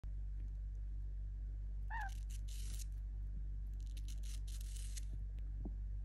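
Rainbow lorikeet giving one short chirp about two seconds in, followed by two spells of harsh, scratchy rasping, the longer one near the end, over a steady low hum.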